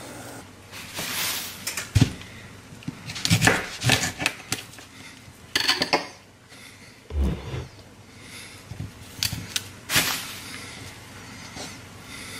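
Irregular knocks, taps and rustling of kitchen prep: a head of broccoli being handled and broken into florets on a plastic cutting board, with a couple of heavier thumps about two seconds in and again past the middle.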